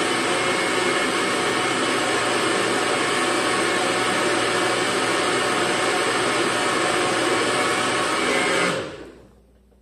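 Nutribullet personal blender's motor running steadily, blending a cup of green juice while the cup is held pressed down on the base. About nine seconds in it cuts out and spins down with a falling whine.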